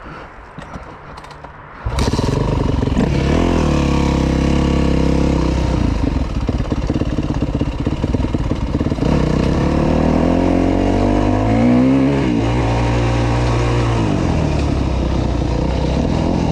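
Yamaha YZ250F motocross bike's single-cylinder four-stroke engine, coming on suddenly about two seconds in after a few faint clicks, then running with the revs rising and falling.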